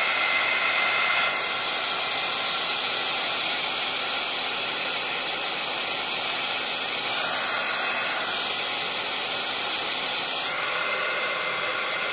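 Handheld craft heat gun running steadily, its fan blowing a hot-air hiss to dry wet shimmer ink on paper.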